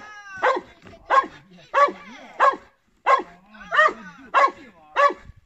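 A search and rescue dog barking in a steady, repeated run, about three barks every two seconds. This is a bark alert, with the dog staying at one spot in the rubble to indicate a found victim.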